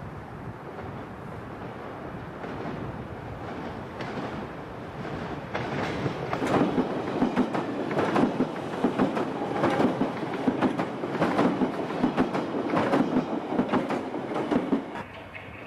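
London Underground 1983 Tube Stock train passing. Its rumble builds for about six seconds, then its wheels clatter over the rail joints in a steady rhythm of clicks for about nine seconds, and the sound cuts off sharply near the end.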